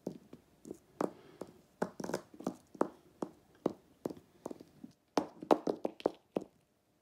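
Hard plastic animal figurines tapped along a plastic-covered table to make them walk: a run of light knocks, about two or three a second, growing busier about five seconds in.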